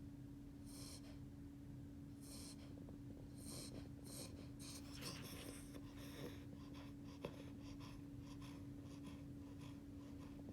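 Eight-week-old beagle puppy snoring faintly in his sleep: short, hissy wheezes about once a second, then quicker and fainter ones after about six seconds. A steady low hum runs underneath.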